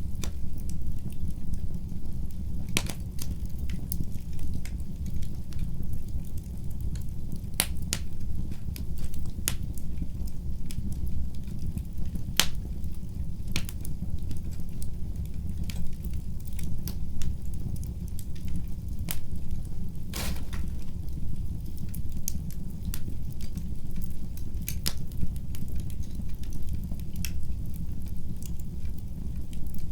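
Wood fire crackling in a fireplace: irregular sharp snaps and pops over a steady low rumble, with a louder pop about twenty seconds in.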